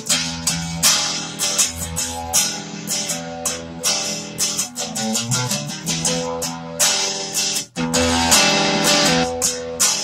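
Electric guitar with a Telecaster-style body, played through a Fender Frontman 15G amp with a sweet, crunchy overdriven blues tone: a run of picked notes and phrases. There is a brief break about three quarters of the way through.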